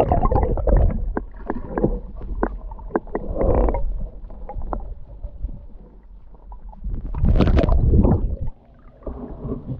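Underwater sound of spring water flowing out among rocks, picked up by a submerged action camera: a muffled low rumble with scattered clicks and knocks. About seven seconds in a louder splashing rush lasts about a second as the camera is churned through the water near the surface.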